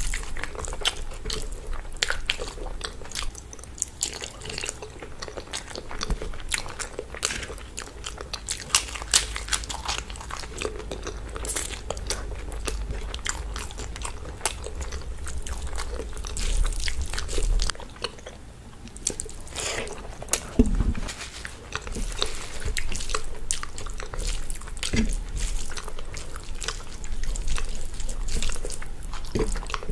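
Close-miked eating sounds: fingers mashing rice into curry on a steel plate, and chewing with the mouth close to the microphone, heard as many short clicks and smacks.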